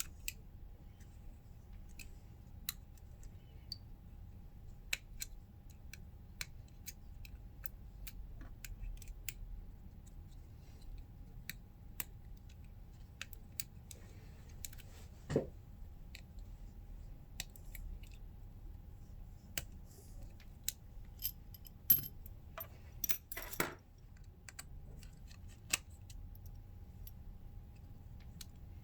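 Scattered light clicks and taps of small repair tools and phone parts being handled during iPhone disassembly, with one louder knock about halfway and a quick cluster of clicks near the end. A faint steady hum runs underneath.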